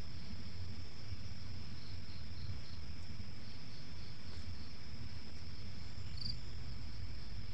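Night-time crickets: a steady high-pitched trill, with another cricket chirping in short quick runs and one louder chirp near the end, over a low steady rumble.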